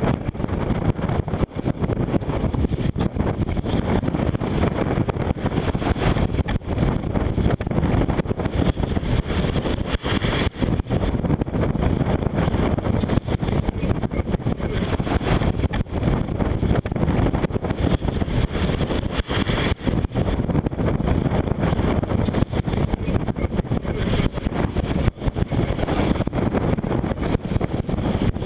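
Force 6 wind buffeting the microphone aboard a sailing boat: a loud, steady rumble that flutters with the gusts.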